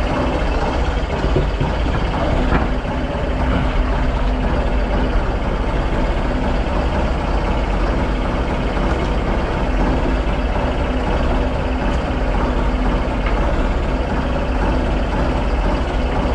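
Fishing boat's diesel engine running steadily, an even low drone under the work on deck.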